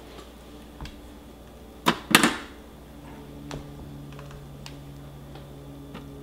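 A shallot dropped through the feed chute of a food processor, landing in the plastic bowl with two sharp knocks in quick succession about two seconds in. A faint, steady low hum follows.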